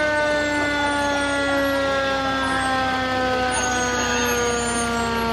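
Fire truck siren sounding one long tone that slowly falls in pitch as it winds down, over the low running of the truck's engine.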